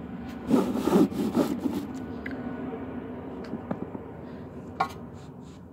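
A new lightweight lower control arm rubbing and scraping against the car's suspension as it is worked into its mount, loudest in the first two seconds, followed by quieter handling and a few light knocks.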